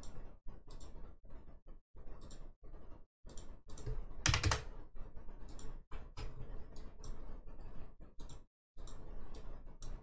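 Computer mouse and keyboard clicking in an irregular run of short clicks, with one louder noise about four and a half seconds in.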